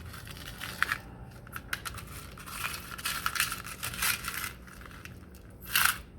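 Hands rummaging through jewelry-making supplies: small metallic clicks and clinks of chain and findings mixed with rustling and crinkling, with a louder rustle near the end.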